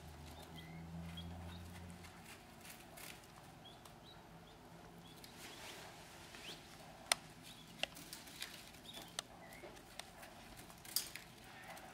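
Button quail chicks peeping faintly in short, scattered chirps, with a few sharp taps in the second half.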